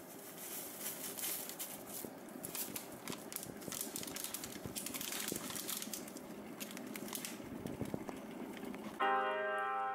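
A paper sachet of instant porridge oats crinkling as dry oats are shaken out of it into a ceramic bowl, with a hiss and light patter of the falling flakes. Piano music starts about nine seconds in.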